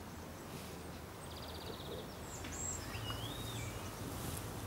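Quiet outdoor ambience with birds calling: a rapid high trill about a second in, then a few short whistled notes sliding up and down, over a faint low hum.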